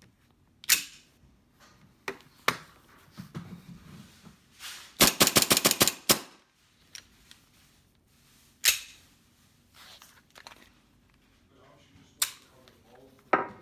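Hi-Capa gas blowback airsoft pistol firing shots over a chronograph: single sharp cracks a second or more apart, with a fast run of about ten shots around the middle.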